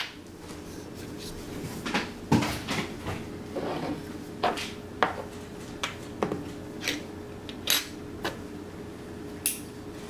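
Irregular sharp metallic clicks and clinks, about a dozen, from a Zippo windproof lighter's metal case being handled in the hand while it burns.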